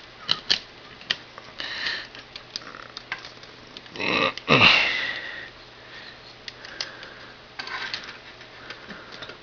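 Plastic model kit parts being handled and pressed together, giving a few sharp clicks, as the torso halves of a 1/100 Gundam kit are connected. Two loud sniffs come about four and five seconds in.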